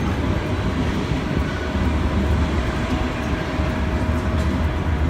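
Steady low rumble of a moving vehicle, with a faint steady whine that comes in just after the start and fades before the end.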